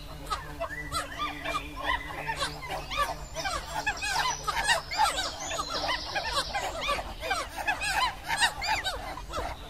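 A flock of birds calling together: many short, rising-and-falling calls overlapping in a continuous chatter.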